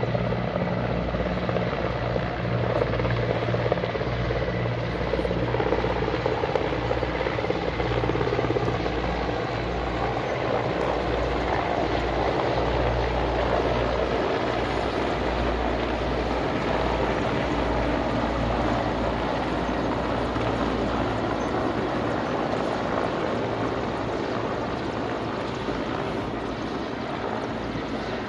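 Three Mi-17 helicopters flying past in formation: a steady rotor beat over turbine noise, with the low thudding fading away over the last several seconds.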